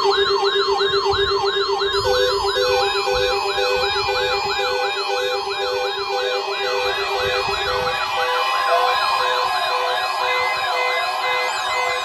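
NOAA weather radio receivers sounding their alert alarms for the weekly warning alarm test. A fast warbling siren tone runs over a steady low tone that stops about eight seconds in. A beeping tone joins about two seconds in, and a steady higher alarm tone comes in near the eight-second mark.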